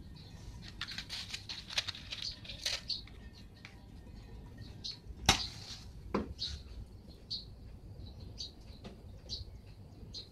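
A matchstick struck about five seconds in, flaring with a brief hiss, then a small knock. Small birds chirp in the background.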